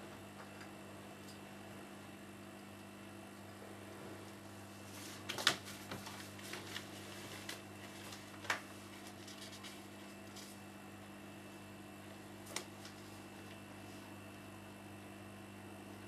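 Steady low electrical hum, with a few sharp clicks: a small cluster about five and a half seconds in, another click near eight and a half seconds and a faint one near twelve and a half.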